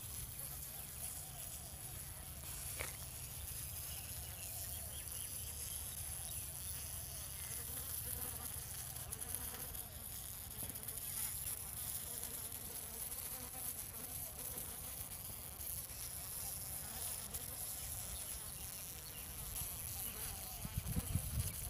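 Flies buzzing in a steady, faint drone over a low rumble, with a few thumps near the end.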